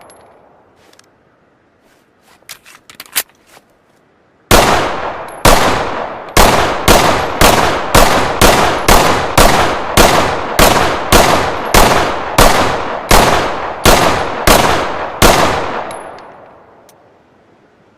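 A .500 handgun firing about twenty loud shots in quick succession, roughly two a second, each with a ringing echo, after a few light metallic clicks; the last shot's echo fades away slowly.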